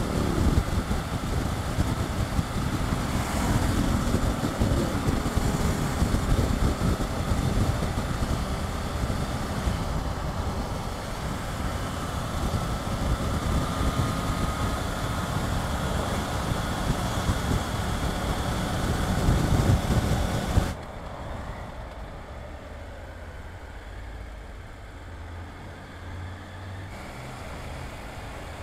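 Riding noise on a Triumph Tiger 900 GT Pro motorcycle with its three-cylinder engine at road speed: a steady rush of wind and road noise over the engine's drone. About two-thirds of the way through it drops suddenly to a much quieter, steady hum.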